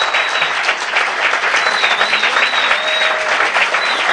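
Audience applauding steadily after a song.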